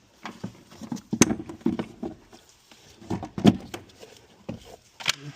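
Irregular knocks, clunks and scrapes of a replacement car battery being handled and set down into its battery tray. The sharpest knocks come about a second in, at about three and a half seconds, and again near the end.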